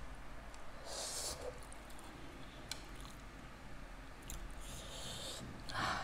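Faint eating sounds from someone eating double-spicy instant noodles and a boiled egg: a hissy, noisy breath about a second in and again near the end, with a few small clicks in between.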